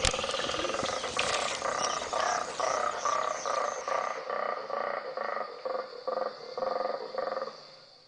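Colobus monkey roaring: a long rhythmic run of croaking pulses, about three a second, fading out near the end. Birds chirp high above it in the first half, and a steady high whine sets in about halfway.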